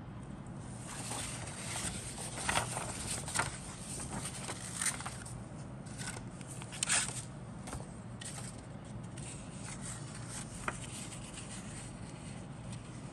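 Paper rustling and crackling as a printed kit instruction sheet is handled, folded and turned over: a string of short, sharp crinkles, the loudest about seven seconds in, then a single tick near eleven seconds.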